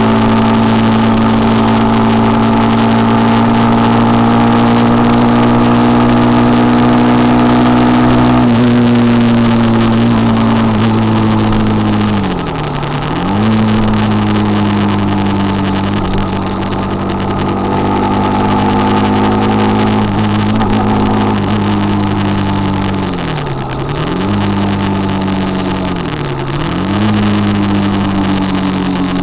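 Motorcycle engine running at steady revs during a ride, with wind and road noise. The revs drop and climb back quickly three times: once about halfway and twice near the end.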